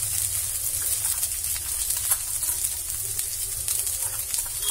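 Tapioca pearls, potato and green chillies sizzling faintly and steadily in oil in a steel kadhai over a low flame, with a few faint ticks and a low steady hum underneath.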